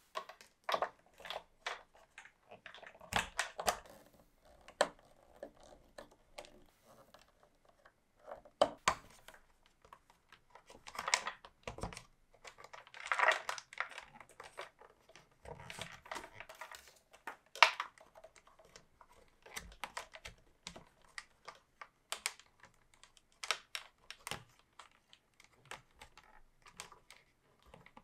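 Irregular clicks and light rattles of clear plastic model-kit parts being handled and fitted together on a transparent BMW boxer engine model, with a few short louder knocks.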